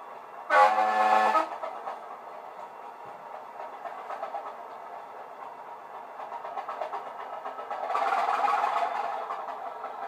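Model DEMU's DCC sound decoder playing through small sugar-cube speakers: one short horn note about half a second in, lasting about a second, over the recorded 'Thumper' diesel engine running. The engine sound grows louder from about eight seconds in.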